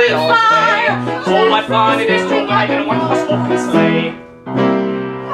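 A song with a singer and instrumental accompaniment, the voice holding wavering notes in the first second. The music drops away briefly about four seconds in, then a new sustained chord begins, leading into the next song of the medley.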